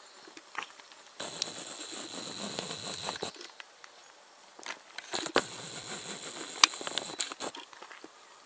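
Rustling and crunching from walking over the ground, in two stretches of about two seconds each, with scattered sharp clicks.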